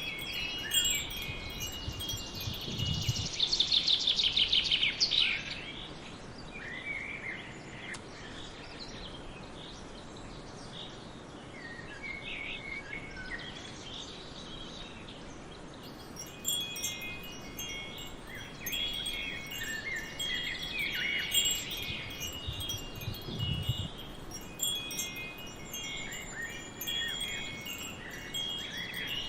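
Wind chimes ringing with high, lingering tones, with a fast run of tinkling strikes a few seconds in. They fall away to a quieter stretch of forest ambience with a few bird chirps, then pick up again about halfway through.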